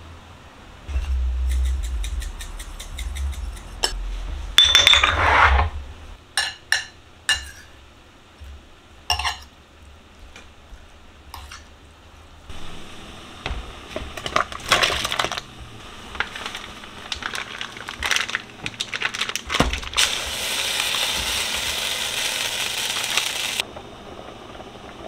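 Kitchen clatter: rattles and taps of spice jars, then a metal fork clinking and scraping in a ceramic bowl as chicken pieces are tossed in seasoning. A steady hiss lasts about three seconds near the end.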